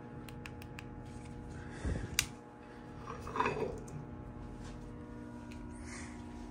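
Steady electrical hum from elevator machine-room equipment, with a low thump about two seconds in and a short metallic clank and scrape around three and a half seconds as the geared traction machine's gear-case inspection cover is lowered and closed.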